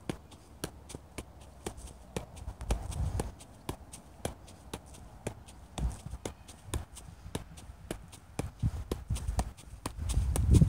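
Soccer ball being juggled with light, even touches off the foot, about three a second. A louder low rumble builds in the last second.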